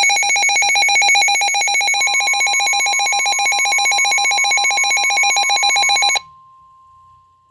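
Emergency alert alarm: a loud electronic trilling tone that cuts off suddenly about six seconds in. Beneath it, a steady single-pitch alert tone starts about two seconds in and carries on faintly after the trill stops.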